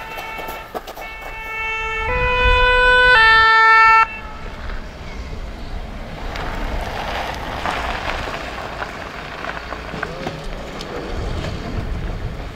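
French fire-brigade rescue van's two-tone "pin-pon" siren, alternating between two close notes and growing louder as it approaches, then cutting off suddenly about four seconds in. After that comes the even rumble of the vehicle's engine and tyres as it pulls up.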